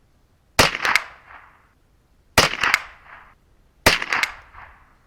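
Three .22LR rifle shots from a 10/22 firing Winchester 36 gr copper-plated hollow points, about a second and a half to two seconds apart. Each crack is followed by a quick flutter of echoes.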